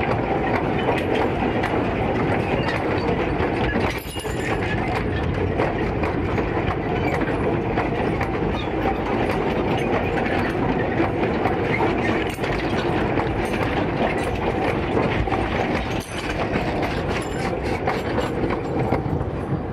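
A long train of loaded sugarcane wagons rolling past close by on 762 mm narrow-gauge track, with a steady clatter of steel wheels and running gear and many small knocks. The last wagon passes near the end.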